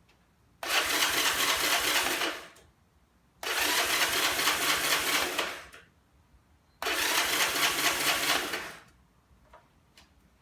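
Motorcycle electric starter motor cranking the engine in three bursts of about two seconds each, with the choke set. The engine does not catch; each burst simply stops.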